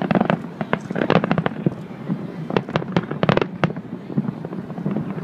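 Aerial fireworks display: shells bursting in rapid, irregular bangs and crackles, in a dense flurry about a second in and another about three seconds in.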